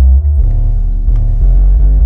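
Massive Audio 6000-watt subwoofer playing a bass-heavy music track loudly, a deep bass line stepping between notes every half second or so over a faint beat.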